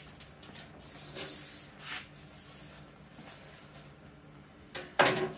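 Hands sliding and rubbing along a thin sheet-metal split stovepipe section as it is bent, a soft hissing rasp that comes and goes. A brief louder rasp comes near the end.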